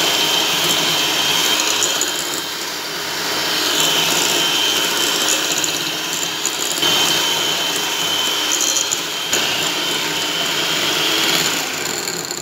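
Electric hand mixer running steadily, its twin beaters creaming butter and sugar in a glass bowl; a steady high motor whine that wavers slightly in pitch and loudness, cutting off at the very end.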